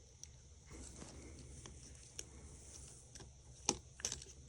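Faint, scattered small clicks and taps of a tool working on an iPhone 5's logic board, unclipping its flex-cable connectors, with two sharper clicks near the end.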